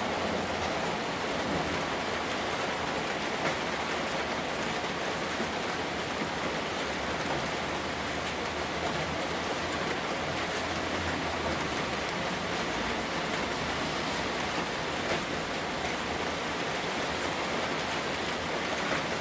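Heavy rain pouring steadily, a dense even hiss of rain on hard surfaces with a few scattered louder drops.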